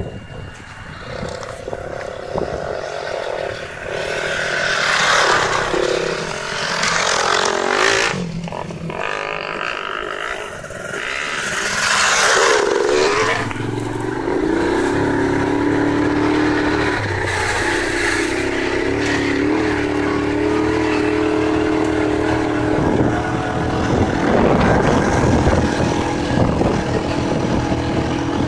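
An engine running, its pitch falling about twelve seconds in and then holding a steady drone, with swells of rushing noise around five to eight seconds and again near twelve seconds.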